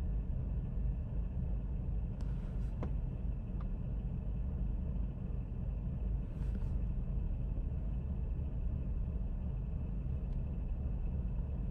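Chevrolet Sonic's four-cylinder engine idling rough just after refuelling, a steady low rumble, with a few faint clicks about two to four seconds in. The rough idle after filling up is the symptom of a failed evaporative emissions purge valve.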